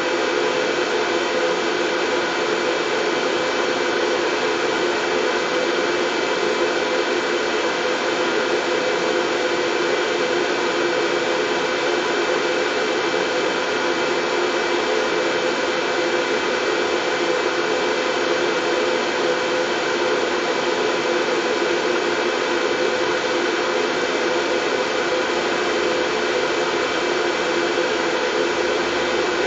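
Steady white noise with a constant low hum running through it, unchanging in level or pitch.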